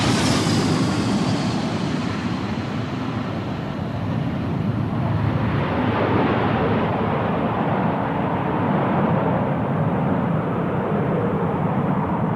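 Boeing B-52 Stratofortress jet engines running at high power as the bomber passes and moves away down the runway. A high turbine whine drops in pitch right at the start, then gives way to a steady deep roar.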